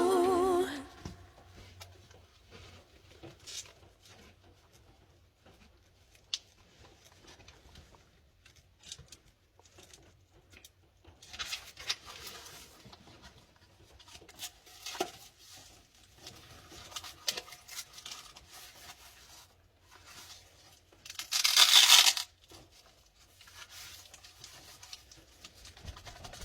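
Hand-handling noises from a Wera Zyklop ratchet set and its textile box: scattered light clicks and soft rustles. About three-quarters of the way through comes one loud rasping rip lasting about a second. The singing music stops just after the start.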